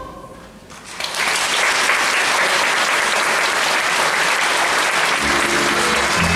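Audience applauding, breaking out about a second in as the last sung note of the song fades. Near the end steady low instrumental notes come in under the clapping.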